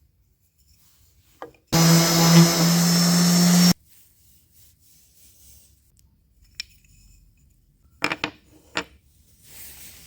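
An electric power tool's motor runs steadily for about two seconds, starting and stopping abruptly, while working wood. A few sharp knocks follow near the end.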